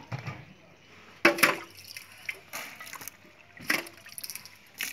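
A metal cup scooping wet pomegranate arils and juice out of a large metal pot and tipping them into a plastic colander. Wet sloshing, with three sharp scrapes or clatters: about a second in, near four seconds, and at the end.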